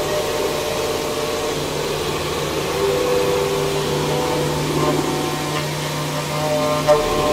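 CNC milling machine's end mill dry-cutting hardened SKD61 tool steel (HRC55) with the spindle at 4,500 rpm: a steady machining hum with several held tones over a noisy hiss, and a short knock near the end.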